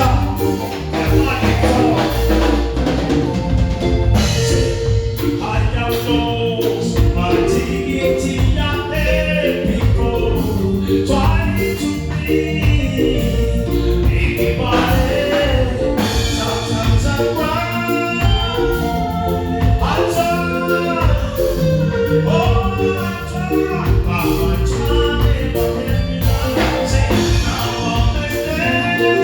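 A live band playing with a singing voice over bass and drums keeping a steady beat.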